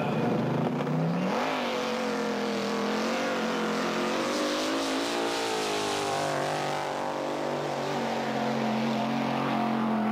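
Small-block Chevy V8 drag motorcycle revving up and launching with its rear tyre spinning in smoke, the engine held at high revs down the strip. Its pitch falls after about six seconds as the run ends, and a steadier, lower engine note carries on near the end.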